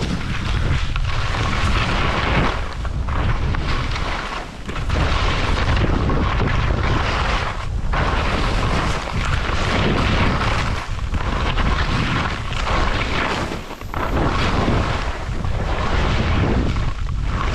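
Skis scraping and chattering over firm, icy, chunky snow, with wind buffeting the microphone. The noise is loud and continuous, dipping briefly every second or two.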